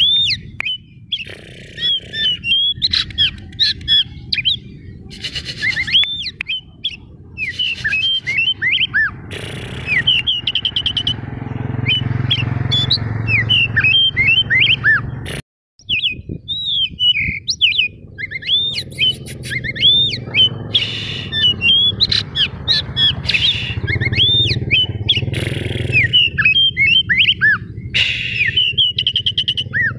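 Caged white-breasted oriental magpie-robin (kacer daput) singing a fast, unbroken run of rising and falling whistled notes mixed with harsh chirps, the riled-up song used to provoke other magpie-robins into answering. A low rumble runs under much of the song, and the sound cuts out completely for a moment just past halfway.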